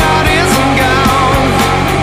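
Loud rock music with a steady drum beat, guitar and singing.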